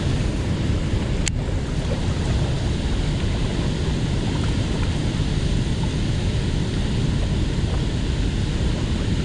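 Dam spillway outflow rushing steadily: whitewater from the open gates churning over rocks. One sharp click about a second in.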